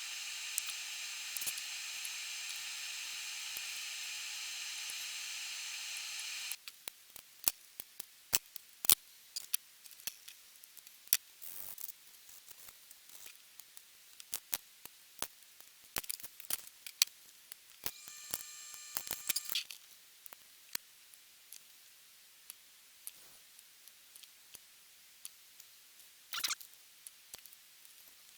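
A steady whine for about six and a half seconds that cuts off suddenly, then scattered sharp clicks and snips of plastic model-kit parts being handled and cut, with a second brief whine about two-thirds of the way through.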